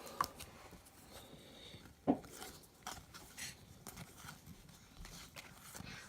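Faint handling of trading cards, with soft clicks and rustles as cards from an opened pack are flipped through one by one, and a louder tap about two seconds in.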